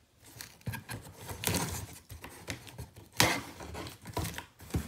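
A cardboard shipping box being cut open with a pocket knife: a string of short scraping and tearing sounds as the blade slits the packing tape, the loudest about a second and a half, three seconds and four and a half seconds in.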